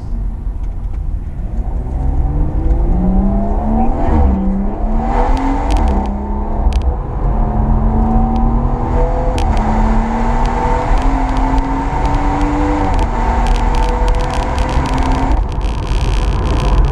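BMW M140i's JB4-tuned turbocharged 3.0-litre straight-six with a BCS valved exhaust, heard from inside the cabin accelerating hard: the engine note rises, drops sharply at two quick upshifts in the first six seconds, then climbs slowly in a higher gear. A loud rushing noise comes in near the end.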